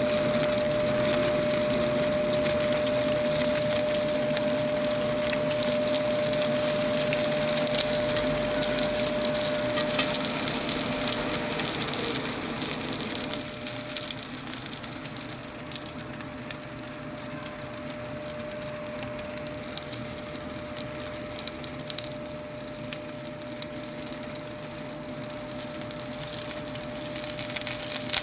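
Potstickers pan-frying in oil on a griddle, a dense sizzling crackle that eases off about halfway through and picks up again near the end. A steady hum runs underneath.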